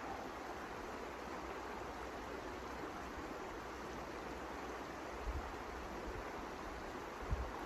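Blizzard wind blowing steadily, a rushing noise with no let-up, with low gusts buffeting the microphone about five seconds in and again near the end.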